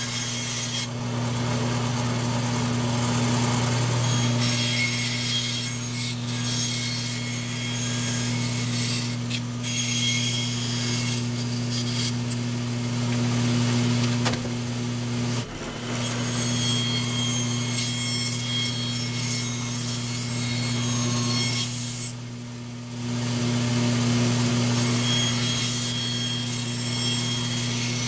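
Bandsaw running with a steady motor hum while its blade cuts through a 2x4. The hiss of the cut comes and goes between cuts and drops out briefly a little past two-thirds of the way through.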